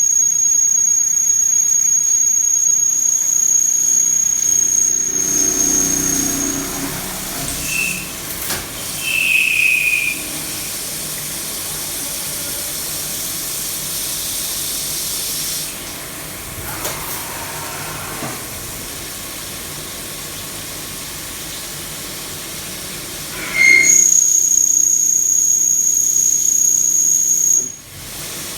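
CNC milling machine running during an M24 thread-milling operation. A steady high-pitched whine drops away after about six seconds, a hissing stretch and a quieter spell follow, and the whine returns a few seconds before the end.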